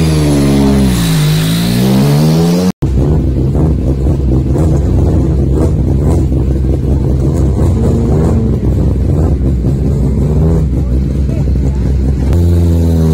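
Rally car engines running. At first a Lancia Delta S4's engine is blipped, its pitch dipping and then climbing again. After an abrupt cut, another rally car's engine runs at a rough, unsteady idle, and near the end an engine revs up.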